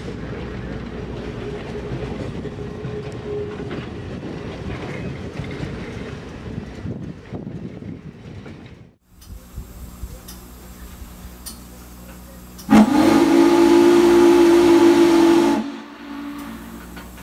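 Train cars rolling past with steady wheel noise. About thirteen seconds in comes one long blast of Norfolk and Western Class J 611's steam whistle from inside the cab: a loud chord of several steady tones lasting about three seconds, then it cuts off.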